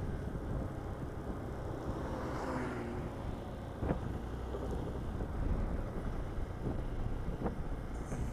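Hero XPulse motorcycle running while riding, with wind rushing over the microphone and a couple of short clicks.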